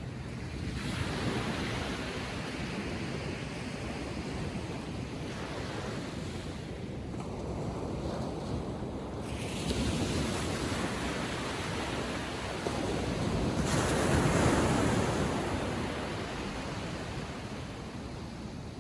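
Small ocean waves breaking and washing up the beach in a calm sea, in several swells, the loudest about fourteen seconds in.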